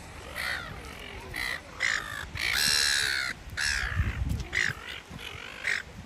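A flock of silver gulls calling: many short, harsh calls one after another, with one longer, louder call about halfway through.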